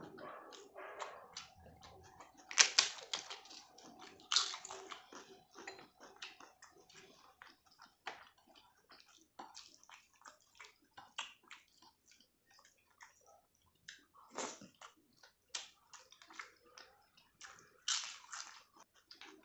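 Wet squishing and smacking of fingers mixing rice with dal and gobi masala on a plate, in many short sticky sounds, mixed with close-up chewing of mouthfuls.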